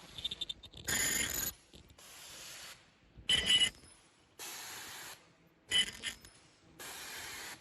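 Automatic KN95 mask-making machine cycling, giving short bursts of air hiss about once a second. Sharper mechanical clatters alternate with softer plain hisses.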